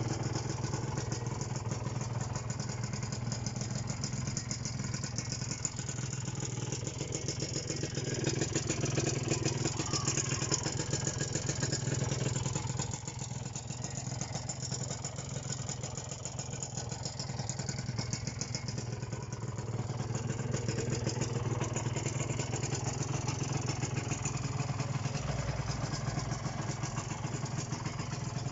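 Kawasaki AR125R's two-stroke single-cylinder engine idling steadily, a little louder for a few seconds partway through.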